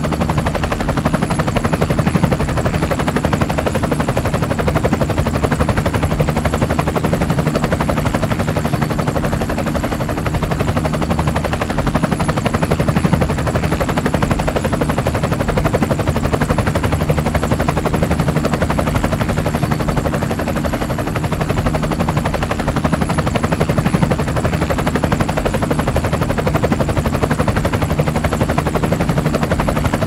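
Helicopter running steadily: a rapid chop from the rotor blades over a low, even drone, with a faint high whine.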